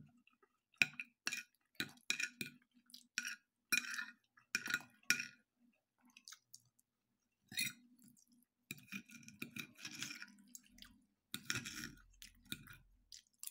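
A metal knife and fork clinking and scraping on a ceramic plate as the last of the food is gathered up, in irregular bursts of sharp clinks, with chewing between them.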